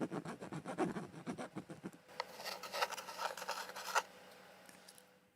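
Scratching and rubbing noises: a quick run of short scrapes for about two seconds, then a softer scraping with a few sharp clicks that stops about four seconds in.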